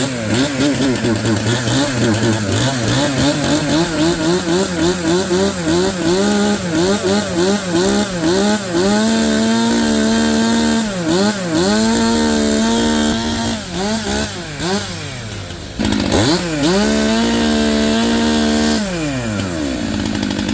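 Brand-new Stihl MS 400 C-M two-stroke chainsaw running just after its first start, being revved. At first the throttle is blipped quickly again and again. Then it is held at full revs several times, dropping back between pulls, and it falls toward idle near the end.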